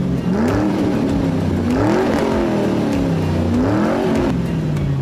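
Car engine revving three times, its pitch climbing and falling back each time before settling at a lower, steady note near the end.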